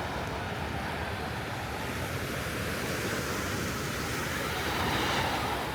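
Ocean surf washing steadily on the beach, a wave swelling a little louder about five seconds in.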